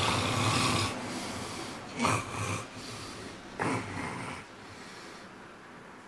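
A man snoring loudly through his open mouth: a long snore in the first second, then two shorter, louder snorts about two and three and a half seconds in, before the breathing quietens.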